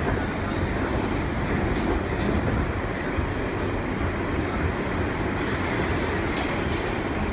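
R143 subway car running along the track, heard from inside the car: a steady rumble of wheels on rail with a few faint clicks.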